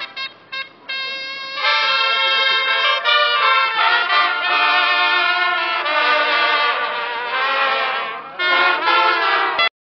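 Brass band playing, choppy for the first second or so, then steady, and cut off suddenly near the end.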